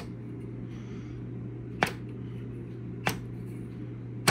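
Zenith 6S128 tube radio's speaker giving a steady low hum and faint hiss with no station playing while its knob is turned, broken by three sharp clicks a little over a second apart.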